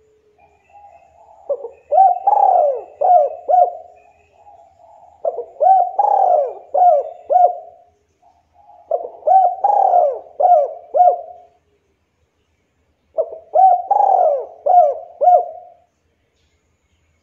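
A Javanese local spotted dove cooing four times, its song phrases coming about every four seconds. Each phrase opens with a soft lead-in note and runs into a quick series of louder, rounded coos.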